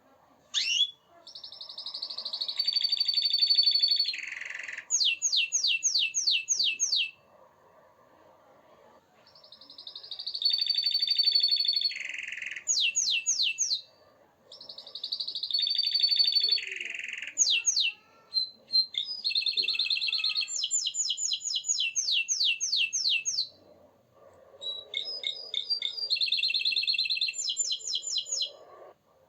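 Domestic canary singing: long phrases of rolled trills and rapid runs of evenly spaced chirps, each phrase a few seconds long, with short pauses between them.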